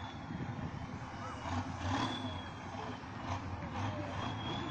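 Six-wheeled off-road trial truck's diesel engine running steadily as the truck crawls over a dirt mound.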